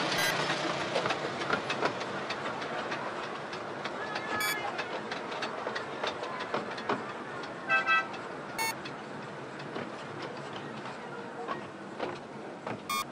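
Miniature railway train running, its wheels clattering and clicking over the rail joints as a blue Hunslet diesel locomotive and its carriages pass close by. Short high squeals cut in a few times, loudest about eight seconds in.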